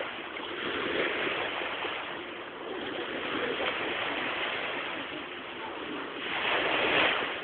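Surf washing onto a beach, a steady rush that swells and eases, with its loudest surge near the end.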